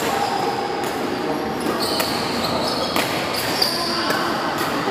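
Badminton play in a large indoor sports hall: several sharp racket-on-shuttlecock hits and short high squeaks of shoes on the court floor, over a background of voices.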